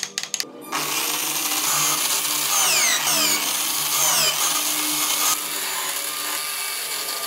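Electric drill used as a small wood lathe, running steadily while a chisel cuts a spinning wooden wheel: a whir with the scrape of the tool on the wood, starting about a second in after a few quick clicks. Several short falling squeals come in the middle.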